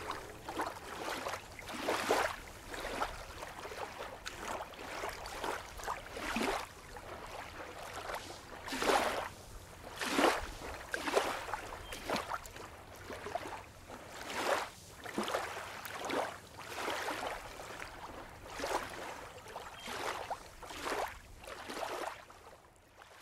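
Water splashing and sloshing in irregular swells about once a second, fading out at the end.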